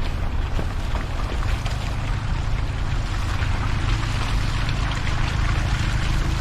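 A steady low engine hum under a constant hiss.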